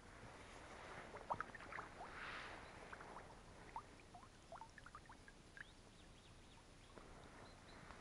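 Faint sound of oars working calm river water: a soft splash of a stroke about two seconds in, with scattered drips and small trickles falling from the blades.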